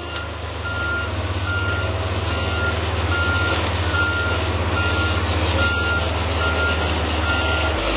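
Backup alarm of a TimberPro TB 620 feller buncher beeping steadily, about two beeps a second, over the steady drone of the machine's diesel engine. The beeping stops just before the end.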